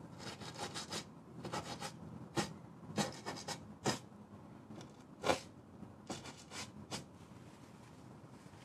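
Steel wool scratching over wet oil paint on a primed aluminium panel, in a run of short bursts of quick strokes that stop about seven seconds in.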